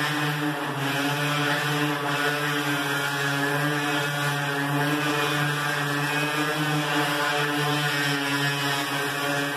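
Electric orbital sander running at a steady hum, its pad sanding down grey primer on a smooth sheet-metal gate.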